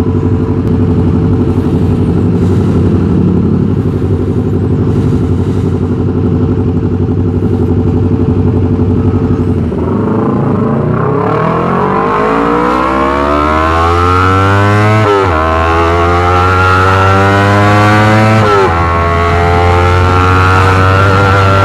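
Yamaha R25 parallel-twin engine through a Racefit Slash aftermarket exhaust, first running steadily at low revs, then accelerating hard from about halfway through, the revs climbing with two upshifts a few seconds apart.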